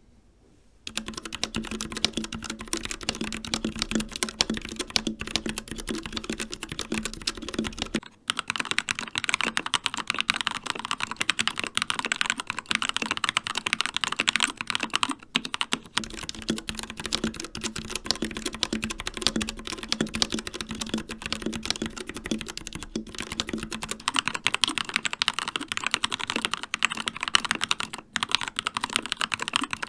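Fast, continuous typing on mechanical keyboards with linear red switches, starting about a second in. It switches every eight seconds between a Royal Kludge H61 Plus with RK Red switches, which sounds deeper, and a Keychron K2 with Gateron Red switches, which sounds brighter.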